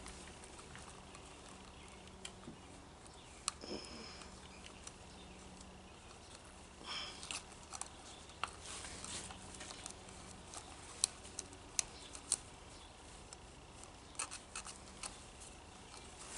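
Faint handling noise of nylon trimmer line being poked into a plastic string-trimmer bump head: scattered light clicks, taps and rustles, busiest in the second half.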